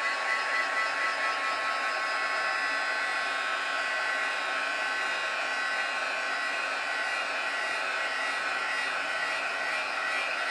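Craft embossing heat tool running steadily, its fan blowing hot air onto solvent ink on an aluminum sheet to heat-set it: an even rush of air with a steady whine.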